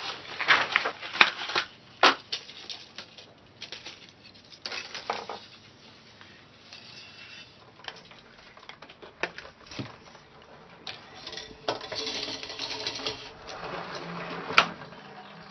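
Small handling noises: sharp clicks and clinks, several in the first two seconds and scattered after, with light rustling, one loud click near the end, and a low steady hum coming in near the end.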